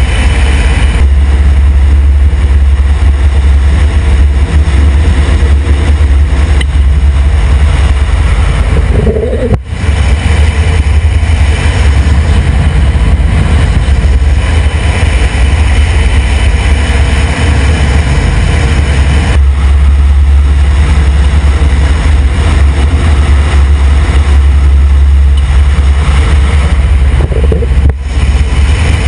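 UH-60 Black Hawk helicopter running loud and steady: heavy low rotor drone over the whine and rush of its twin turboshaft engines, broken by a brief dip about ten seconds in and again near the end.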